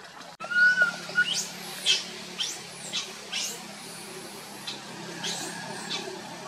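High-pitched animal calls: a wavering, whistle-like cry about half a second in, then a string of quick chirps that each sweep downward in pitch, roughly two a second. A faint steady hum runs underneath.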